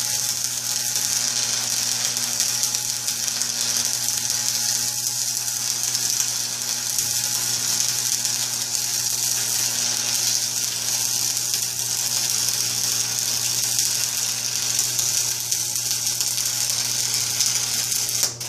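Stick (shielded metal arc) welding with a 7018 rod: the arc burning with a steady hiss over a low hum, cutting off suddenly near the end when the arc is broken at the end of the bead.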